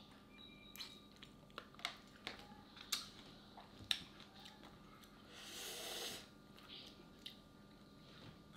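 Quiet eating sounds of a person eating a spicy papaya salad with salmon: scattered soft clicks and chewing noises, with a brief breathy rush about two-thirds of the way through.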